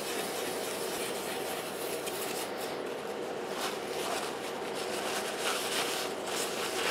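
Steel wool scrubbing the copper face of a blank circuit board, a steady rubbing, to clean the copper so the printed toner will stick. Near the end a paper towel is wiped over the board.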